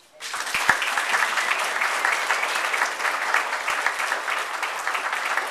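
An audience applauding: dense clapping that breaks out suddenly and keeps up steadily.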